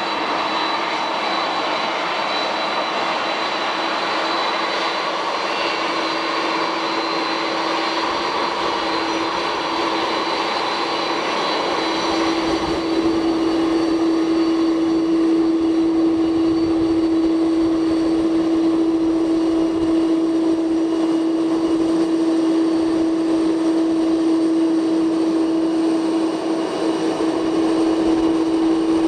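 Boeing 747-400F freighter's four turbofan engines running at taxi power: a steady jet whine over a strong, even hum. About twelve seconds in the hum grows louder and the high hiss drops away.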